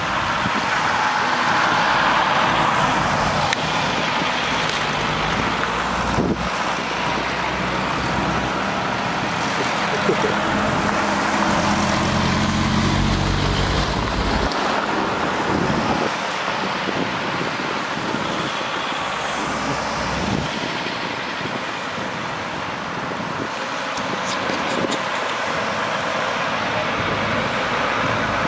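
A line of cars passing close by, one after another, on a wet road: tyre hiss and engine noise. A low engine hum builds through the middle and stops abruptly about halfway through.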